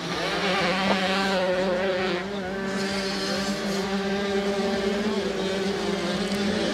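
Two-stroke 85cc motocross engines running at high revs, one holding a steady high note throughout while other engine notes waver beside it.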